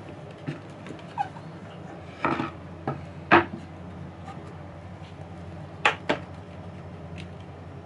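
Kitchen knife cutting through a cooked sweet potato and knocking on a wooden cutting board: a few sharp knocks, the loudest about three and a half seconds in, then two quick clacks near six seconds as the knife is set down on the board. A steady low hum runs underneath.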